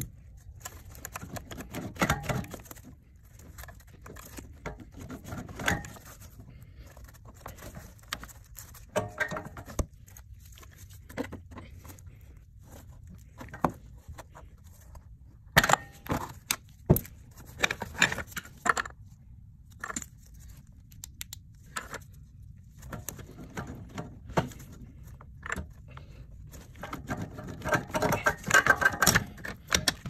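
Irregular clicks, metallic clinks and scraping of hand-tool work with a screwdriver at a car's firewall, mixed with rustling from handling. The sounds come in clusters, busiest in the middle and near the end.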